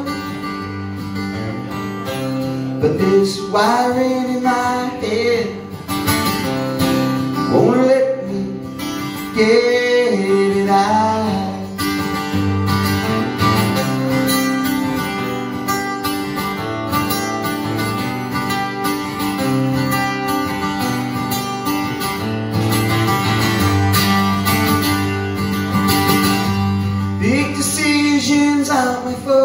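A man singing to his own strummed acoustic guitar, with sung phrases coming and going over steady guitar playing.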